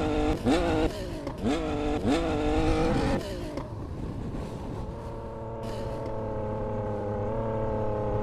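A vehicle engine is revved in quick blips, four short rising sweeps in the first three seconds. It then drops back and settles into a steady run, with a slight rise in pitch near the end.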